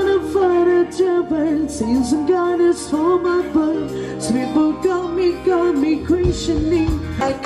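Live band playing a pop song through PA speakers: a woman sings the lead over electric guitar, bass, keyboard and drums with cymbal hits.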